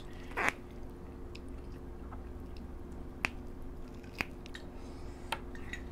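Quiet sounds of a meal eaten by hand at a table: a short rustle about half a second in, then three sharp clicks spread over the following few seconds, over a low steady hum.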